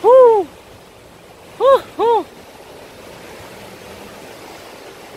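Three wordless voice sounds, each rising then falling in pitch: a long one at the start, then two short ones close together about a second and a half later. Beneath them runs a steady hiss of sea surf.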